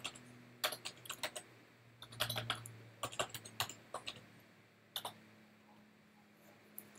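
Typing on a computer keyboard: a quick run of keystrokes over the first few seconds, then a single keystroke about five seconds in.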